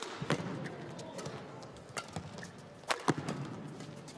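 Badminton rackets striking a shuttlecock in a fast doubles rally: a sharp crack right at the start as a jump smash is hit, then four more sharp hits over the next three seconds, two in quick succession near the end.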